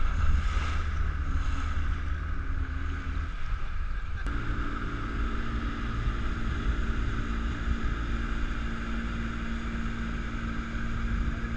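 Motorboat engine running steadily under way, with water rushing past the hull and wind on the microphone; the engine's note shifts after a short click about four seconds in.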